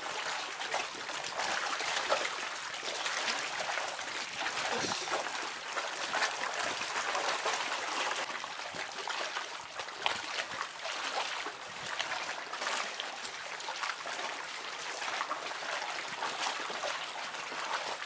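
Seawater lapping and trickling among shoreline rocks: a steady wash of water with many small splashes and crackles.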